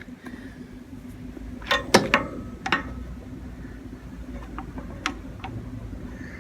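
A handful of sharp clinks and knocks of hand tools and metal parts being handled, bunched around two seconds in with another near five seconds, one ringing briefly.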